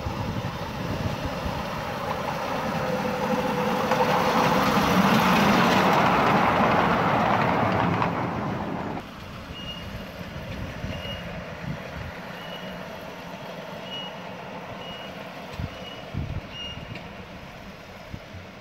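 A 7¼-inch gauge miniature train running past, its rumble building to a peak and then cutting off suddenly about nine seconds in. After that, a quieter background with a short high beep repeating about every 0.7 seconds.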